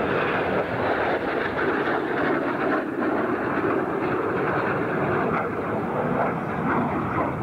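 Red Arrows' BAE Hawk jets flying a formation display: a steady jet rush with no distinct events.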